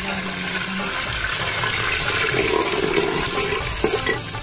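Sliced onions sizzling as they fry in hot ghee in an aluminium cooking pot, the sizzle swelling in the middle. A couple of sharp knocks near the end from the steel ladle against the pot.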